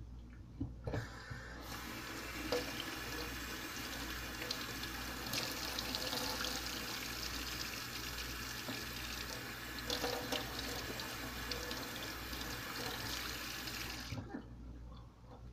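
Kitchen faucet running into a stainless steel sink while something is rinsed under the stream, with a few light knocks. The water comes on about a second in and is shut off abruptly near the end.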